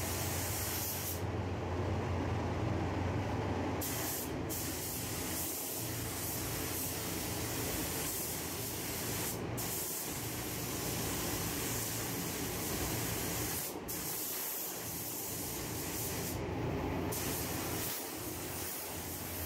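DeVilbiss Tekna ProLite spray gun hissing as it sprays single-stage yellow paint onto a car bumper, over a steady low hum. The hiss thins out briefly several times as the spray stops and starts between passes.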